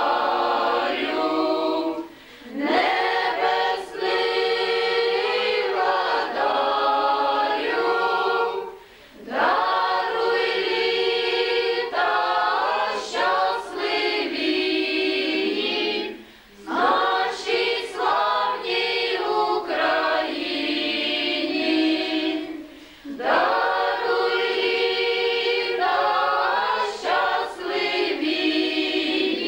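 A group of female voices singing a cappella in unison, a traditional Ukrainian folk song. It comes in long phrases of about six to seven seconds, each followed by a brief breath pause.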